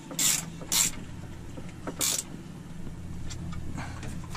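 Wrench being worked on the serpentine-belt idler pulley bolt, three short strokes in the first two seconds or so, over a steady low hum.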